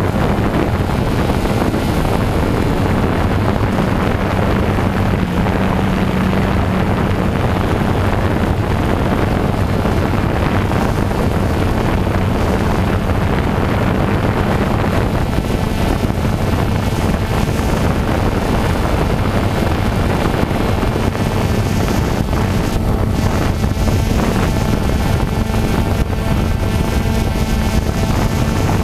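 Vehicle engine running at a steady speed while driving, with tyre rumble and wind on the microphone.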